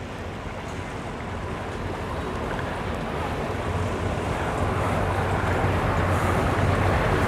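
Twin Yamaha outboard motors running at low speed on a cabin boat, a steady low hum with water washing along the hull, growing steadily louder as the boat comes closer.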